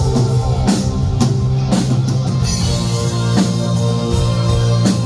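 Live rock band playing, with a drum kit, electric guitar and a held low bass note; the drums hit repeatedly through the first couple of seconds, then more sparsely.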